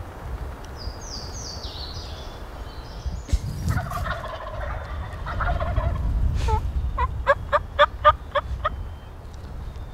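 Wild turkey gobbling a few seconds in, a rattling call lasting about two seconds, followed by a quick run of about seven evenly spaced notes. A few high falling bird chirps come near the start.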